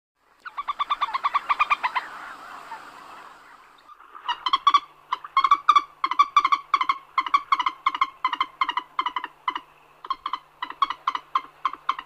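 Common moorhen calling: a fast run of notes for about a second and a half, then a long series of short repeated notes, about four a second.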